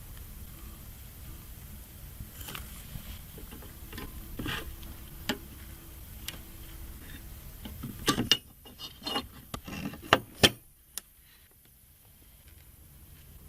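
Small clicks and taps of an M.2 SSD and its motherboard slot cover being handled and fitted: light taps at first, then a quick run of sharper clicks about two-thirds of the way through.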